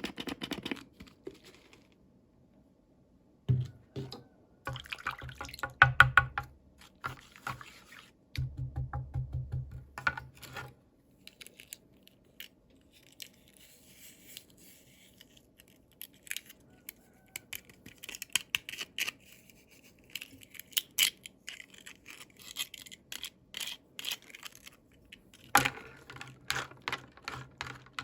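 Small plastic toys and packaging being handled: scattered clicks, taps and scratches, with two stretches of rougher rubbing in the first half.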